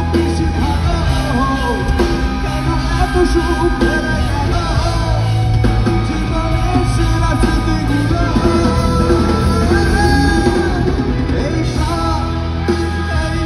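Live rock band playing loud through the PA, with singing voices over the instruments.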